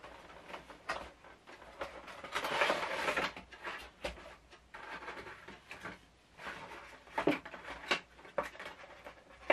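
A cardboard Funko Pop box being opened and its clear plastic tray handled: a stretch of rustling and scraping about two to three seconds in, then a few sharp plastic clicks near the end.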